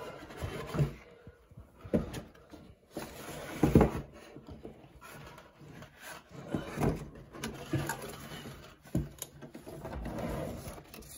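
Cardboard box and packaging inserts being handled and moved: rustling, scraping and scattered knocks, the loudest about four seconds in.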